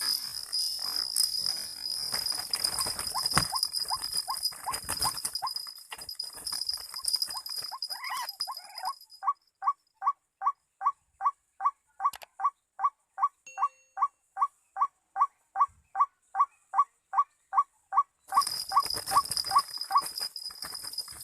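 A bird's call: short notes repeated evenly, about three a second, for many seconds, as used to lure birds in bird trapping. A steady high-pitched buzz sits behind it, stops about nine seconds in, and returns near the end.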